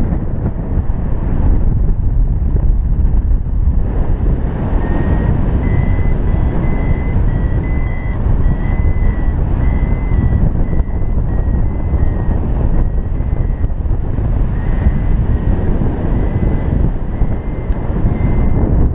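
Arduvario ESP32 variometer beeping in short pulses about twice a second, starting about five seconds in with a slight rise in pitch and briefly thinning out later, over loud wind rushing over the microphone in flight. The beeping signals the paraglider climbing in lift, above the vario's +0.15 m/s beep threshold.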